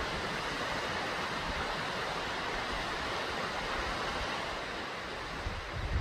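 Steady rushing of a waterfall plunging down a cliff face, with wind buffeting the microphone near the end.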